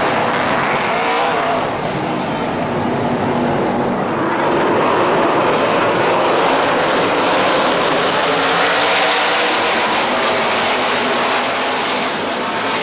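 A pack of NASCAR Craftsman Truck Series race trucks running at speed, many V8 engines overlapping. The sound swells about four to five seconds in as the field passes and stays loud.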